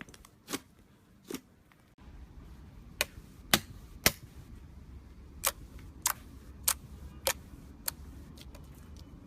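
Slime being worked by hand, giving sharp clicking pops. There are a few in the first two seconds, then after a cut a regular run of about one pop every 0.6 s over a low steady hum.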